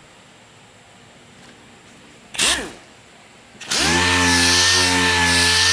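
Power orbital sander on 400-grit paper sanding primer to cut down the 320-grit scratches: a short blip about two and a half seconds in, then it starts up about a second before the end and runs steadily with a hum and a loud hiss.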